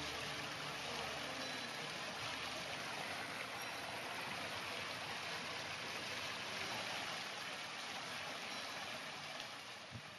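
Running water from a small stream, a steady rushing hiss that eases down near the end.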